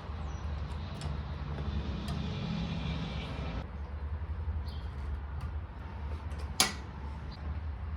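Roadrunner RS5 electric scooter being ridden: steady low wind rumble on the microphone, with a faint motor whine through the first half and one sharp click late on.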